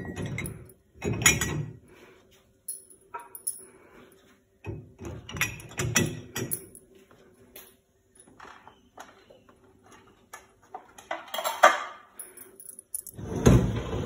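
Dishes being set into a dishwasher's racks: scattered clinks, clatters and knocks of plates and cups against the wire racks, with quiet gaps between them.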